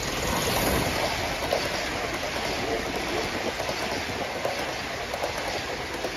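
Aster live-steam model of an LNER B1 locomotive passing close, hissing steam in the first second. Its train of coaches follows, with wheels clicking and rattling on the track.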